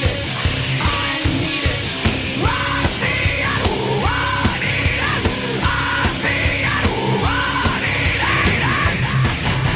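Heavy rock music with a fast, driving beat and distorted guitars, with shouted vocals over it.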